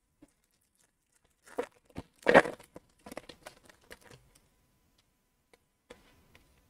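A foil wrapper of an Upper Deck Series One hockey card pack being torn open, with one loud rip about two seconds in. Shorter crinkles and rustles follow as the wrapper is pulled off the cards.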